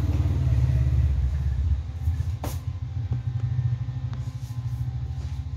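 A motor running: a loud low rumble with a fast, even pulse, with a few light knocks in the middle.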